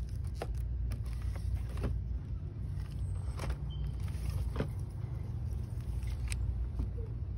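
Steady low rumble of shop background noise, with a few faint, scattered clicks and knocks.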